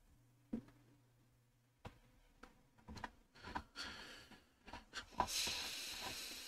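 Faint, scattered clicks from a computer mouse as a web page is scrolled. About five seconds in comes a longer breathy hiss: a person breathing out heavily near the microphone.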